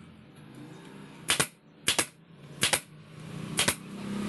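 Pneumatic nail gun firing four times into the wooden table frame, a sharp double crack with each shot, spaced roughly three-quarters of a second apart, starting about a second in.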